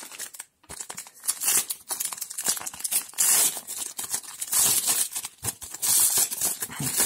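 Foil trading-card booster pack being handled and torn open: the wrapper crinkles and tears in a run of short bursts.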